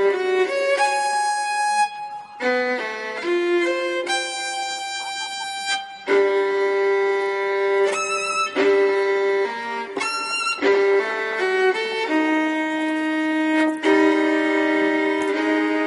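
Background music: a violin playing a melody of held notes, a few of them with vibrato.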